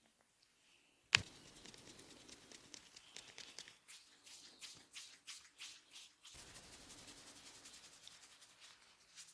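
A barber's hands working hair and scalp in a head massage: a sharp click about a second in, then quick, irregular crackling and rubbing for about five seconds, settling into a soft steady rustle.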